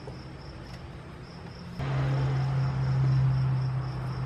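A steady low hum with a hiss sets in about two seconds in, over the faint steady chirping of a cricket.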